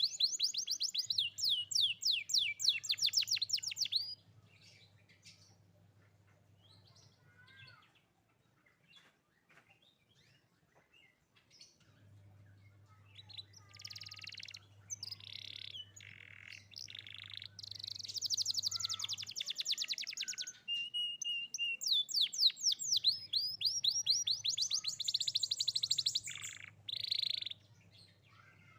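Young domestic canary singing: long phrases of fast, high trills and rapid repeated notes, three phrases separated by quieter pauses.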